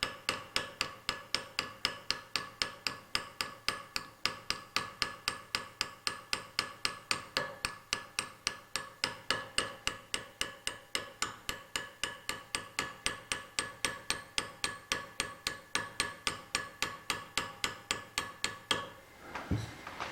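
Rapid, very even light hammer taps on a chisel set against a broken-off tap stuck in a tapped hole, about four strikes a second with a bright metallic ring, stopping just before the end. The chisel is being used to knock the snapped tap loose.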